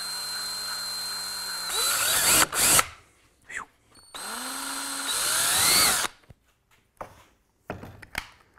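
Cordless drill boring small pilot holes through an ABS plastic door panel, in two runs. Each time the motor whines steadily, then grows louder and shifts in pitch as the bit cuts through; the first run stops about three seconds in, the second about six seconds in. A few light knocks follow.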